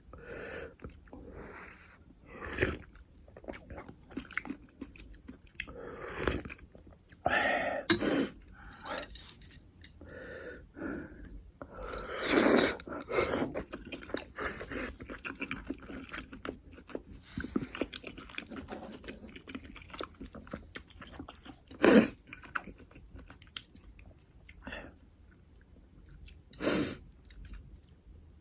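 Close-miked chewing and mouth sounds of someone eating beef and budae-jjigae (Korean sausage stew), in irregular bursts. A few sharper, louder ones come about 8, 12 and 22 seconds in.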